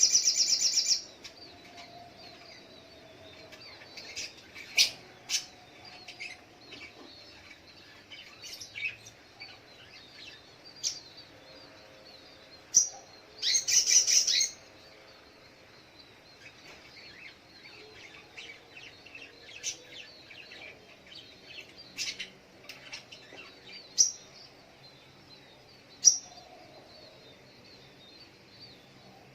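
Crimson sunbird (sogok ontong) singing and calling: a dense high trill that stops about a second in, then scattered sharp, high chirps and a short loud burst of song about halfway through.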